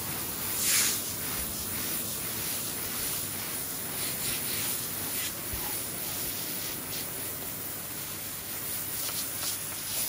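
Water from a hose spraying onto freshly laid exposed-aggregate concrete, washing the surface paste off the stones, a steady hiss. A stiff push broom scrubs across the wet surface with a louder swoosh about a second in.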